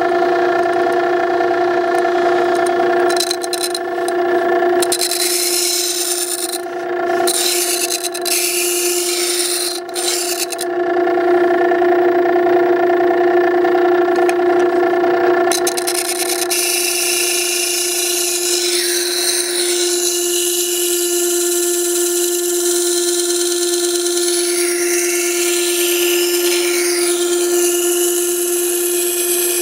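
Makita 9820 electric wet sharpening stone running with a steady motor hum, while a plane iron held in a jig is ground against its coarse 120-grit wheel with a scraping rasp that comes and goes. This is rough grinding to re-establish a bevel that is far from 25 degrees.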